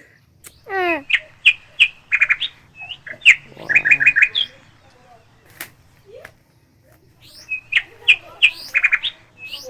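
A bird singing a repeated phrase of sharp chirps that ends in a quick run of four notes, heard twice with a quiet gap of a few seconds between. A single rising call sounds about a second in.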